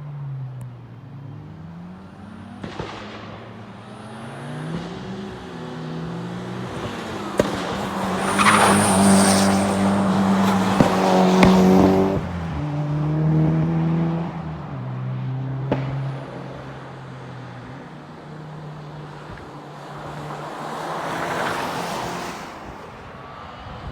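Mitsubishi Lancer Evolution VI TME's turbocharged four-cylinder engine revving up and down through gear changes, loudest about a third of the way in. It is punctuated by a few sharp bangs from its anti-lag misfiring system.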